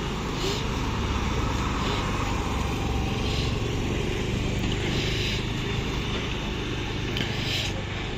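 A motor scooter riding past in the first few seconds, over a steady rumble of road traffic.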